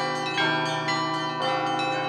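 Russian Orthodox church bells rung by hand: a quick run of strokes on the smaller bells, each ringing on, over the steady hum of a larger bell.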